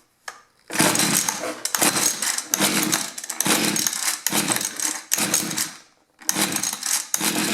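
Mantis mini tiller's two-stroke engine cranked on its recoil pull-starter at half choke, about eight pulls in quick succession, each a short rasping burst of cranking. It does not settle into running: a cold start being attempted on a freshly fitted ignition coil.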